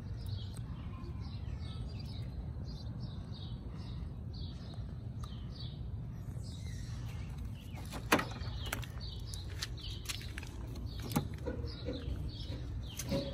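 Small birds chirping repeatedly, short falling chirps coming several times a second, over a steady low rumble. Two sharp clicks stand out, one just past the middle and one near the end.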